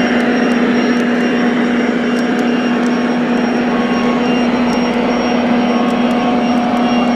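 Steady whine of a 1/14-scale RC construction model's electric motor and drive, a constant tone over dense mechanical noise, running without change.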